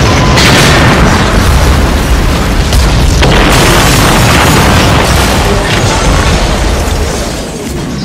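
A sound-effect boom: a long, loud rumble heavy in the low end, with a few sharper cracks in it, dying down near the end.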